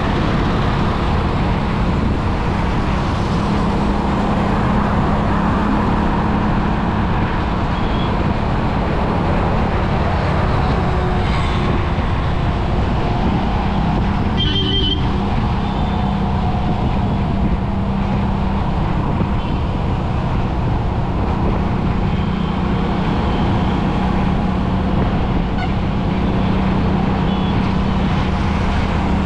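Steady road noise and engine hum of a vehicle driving along a highway in traffic, with a short horn beep about halfway through.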